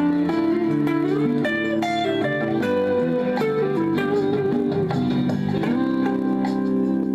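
Guitar playing a melody of changing single notes over a recorded backing track.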